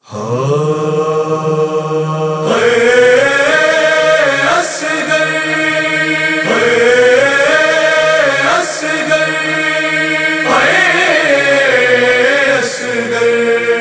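Wordless chorus chanting the opening of a noha lament over a steady low drone, each sung phrase rising and falling in pitch, with a new phrase about every two seconds.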